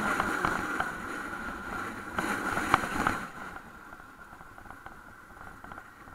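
Traffic and vehicle noise from a dashcam: a steady running noise with a thin high steady tone, a sharp click about two and a half seconds in, then noticeably quieter from about three seconds on.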